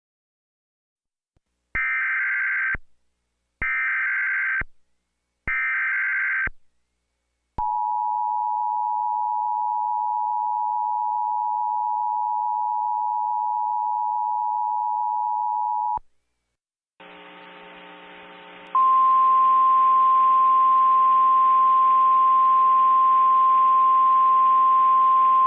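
Emergency Alert System tones: three one-second bursts of the screeching SAME data header, then the steady two-tone EAS attention signal for about eight seconds. After a short pause a buzzing hum starts, and a louder single steady tone comes in over it and holds.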